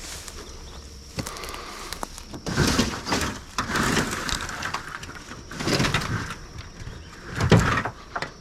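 Rustling and crunching in dry leaves and debris, coming as four short bursts, the last one the loudest, over a faint steady high insect hum.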